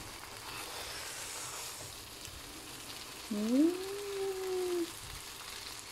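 Fried yellow noodles sizzling faintly in a wok. Midway, a person's drawn-out hum rises in pitch and then holds for about a second and a half.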